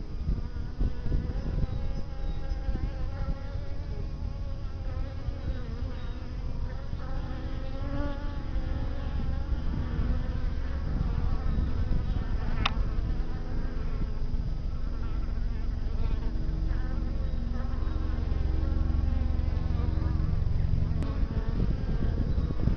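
Native black honey bees (Apis mellifera mellifera) buzzing as they fly close past the entrance of their hive. Several wavering buzzes overlap and come and go as individual bees pass.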